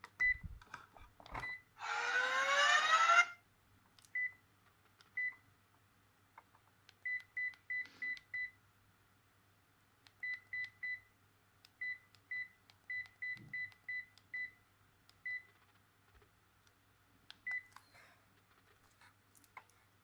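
Sharp GX25 mobile phone's keypad beeps: short identical beeps, singly and in quick runs of three to six, at irregular intervals as its keys are pressed. About two seconds in, a rising electronic sweep plays for about a second.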